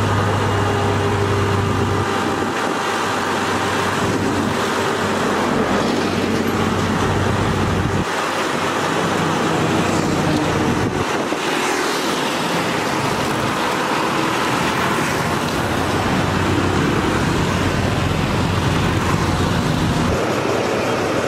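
Steady road traffic noise with vehicle engines running, a low engine hum coming and going.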